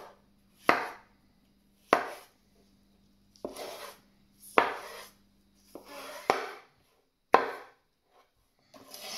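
Cleaver chopping mushrooms on a wooden chopping board: about six sharp knocks roughly a second apart, with softer scraping between some strokes.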